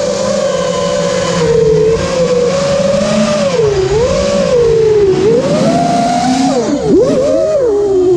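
A 5-inch freestyle FPV quadcopter's brushless motors and propellers whining, heard close from the quad's own camera. The pitch keeps rising and falling with the throttle, with several quick swoops down and up about seven seconds in.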